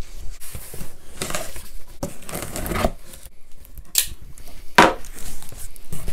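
A knife slicing through packing tape on a cardboard box in several rasping, tearing strokes. About four seconds in, two sharp knocks as the knife is set down on the wooden workbench, then the stiff cardboard flaps being pulled open.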